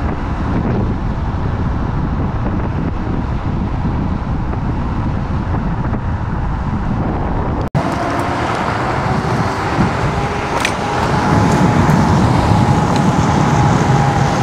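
Wind rushing over the microphone with road and traffic noise while riding a Kaabo Wolf King GT electric scooter fast. The sound cuts out for an instant just over halfway through, and a faint steady whine runs beneath the noise after that.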